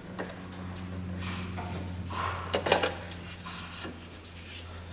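Light metallic clinks and knocks as a chrome air-filter backplate with its intake trumpets is worked loose and lifted off the carburettors, the loudest knocks a little past halfway, over a steady low hum.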